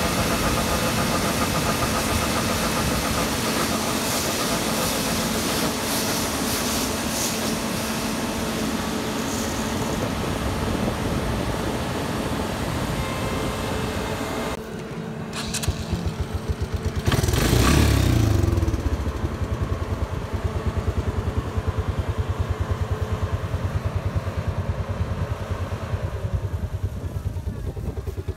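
Harvest machinery engine running with a dense mechanical din. About halfway through, the sound changes abruptly and surges loudly for a moment, then settles into a lower engine note with a regular pulsing.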